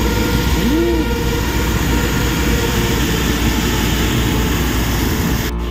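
Mountain stream rushing and splashing over rocks, a loud steady rush of water, with one short chirp about a second in.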